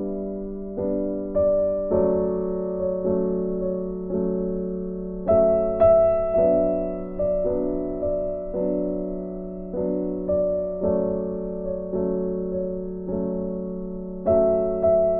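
Background music: a slow, gentle piano melody, each note struck and left to fade.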